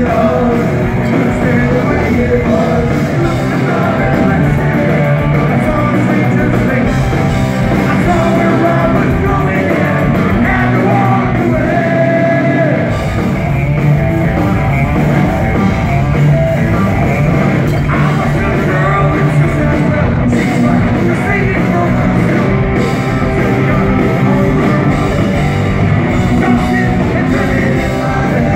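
Punk rock band playing live: electric guitars with a singer, loud and continuous.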